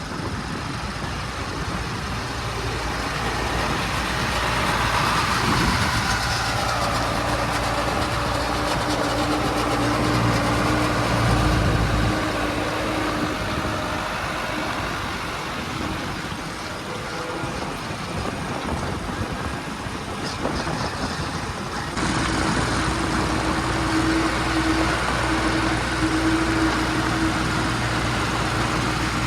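Heavy diesel machinery engine running, its pitch shifting at times, with the sound changing abruptly about three-quarters of the way through.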